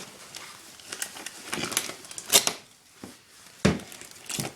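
Irregular metallic clinks and knocks of copper windings being pulled and worked loose by hand from a compressor motor, the loudest knock about halfway through.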